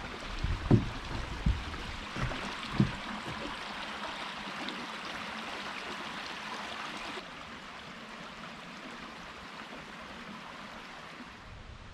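Creek water running steadily, with a few heavy footfalls on the footbridge over it in the first three seconds. The water grows quieter about seven seconds in.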